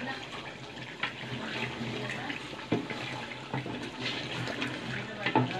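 Thick meat curry bubbling in a metal cooking pot as a wooden spatula stirs it, with a few sharp knocks of the spatula against the pot.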